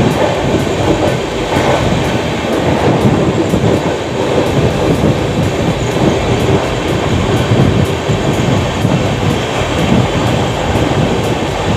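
Passenger express train running at speed through a station without stopping. It is heard from an open coach doorway as a loud, steady noise of the wheels running on the rails.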